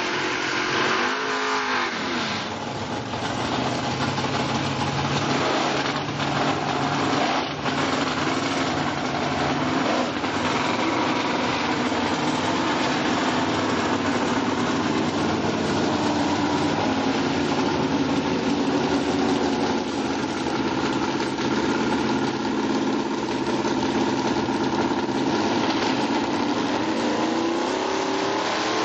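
Drag-racing car engine running hard through a smoky burnout and then holding at the start line, the note dipping and climbing again about a second in and rising near the end.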